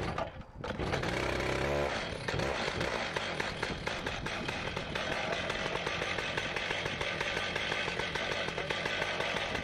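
Chainsaw on an Alaskan chainsaw mill coming up to speed under a second in, then running steadily at full throttle as it rips lengthwise through a large maple log.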